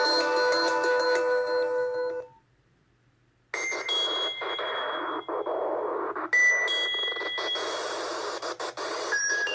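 Nokia 6301 mobile phone playing its ringtones through its speaker. A melody of quick chiming notes ends about two seconds in. After about a second of silence a different tone starts: a hissing, sweeping wash of sound with a few high held pings over it.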